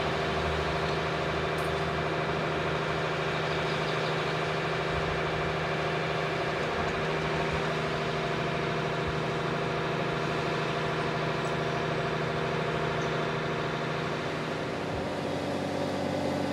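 Diesel engine of a mobile crane running steadily as it lifts a load, its note changing near the end.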